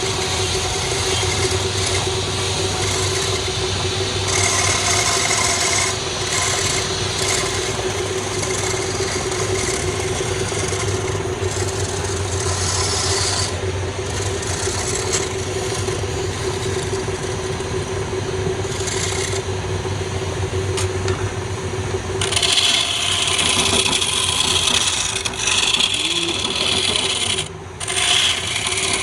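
Wood lathe running with a steady motor hum while a turning tool scrapes and cuts the spinning wood. The cutting turns harsher and brighter about three-quarters of the way through, with a brief dip just before the end.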